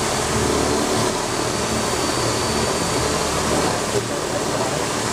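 A Metabo SBE 561 drill drives a Suhner flexible shaft, and a pink mounted abrasive point at its tip grinds a weld seam on stainless steel tube. The motor and the stone on the steel make a steady, unbroken running and grinding noise.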